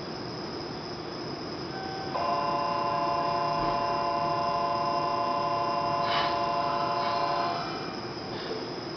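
A platform departure signal sounds a steady electronic multi-tone ring for about five seconds, starting about two seconds in and stopping shortly before the end. Under it runs the steady hum of the waiting electric train, with a short click about six seconds in.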